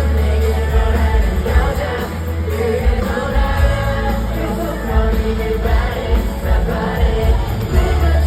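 Pop song with singing over an amplified backing track and a heavy bass beat.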